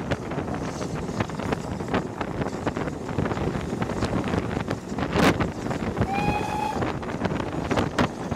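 Wind buffeting the microphone at the window of a steam-hauled passenger train running at speed, with irregular knocks from the wheels on the track. About six seconds in comes a short steam whistle blast.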